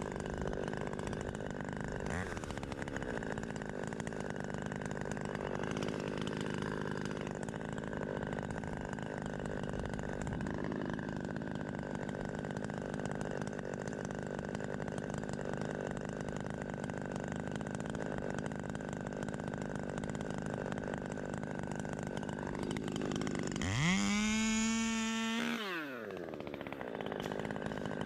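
Redbeard-ported Husqvarna T540 XP Mark III top-handle chainsaw running at a steady idle, then revved to full throttle for about a second and a half near the end and let back down.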